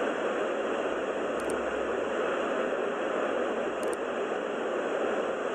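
A steady, even rushing hiss with no pitch or rhythm, holding at one level throughout.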